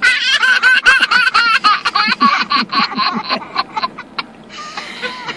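A young child laughing in a quick run of high-pitched shrieks, several a second, which fade out near the end.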